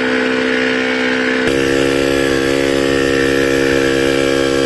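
Small electric air pump running with a steady buzzing hum, pushing air through the diesel injection pump's delivery-valve port for a timing check. About a second and a half in, a deeper hum joins it.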